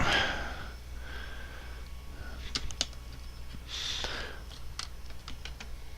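LEGO pieces being handled and pressed together: scattered small plastic clicks with some soft rustling, over a steady low hum.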